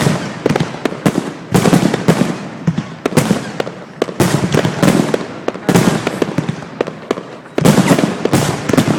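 Fireworks going off in rapid succession: sharp bangs and dense crackling, with heavier booms about one and a half, four and seven and a half seconds in.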